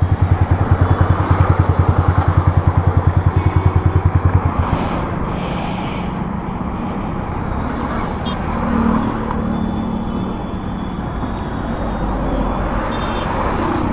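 Yamaha R15 V3's single-cylinder engine idling through an aftermarket Akrapovič-replica exhaust with a steady, even pulsing beat, which stops abruptly about five seconds in as the engine is switched off. After that there is steady road-traffic noise.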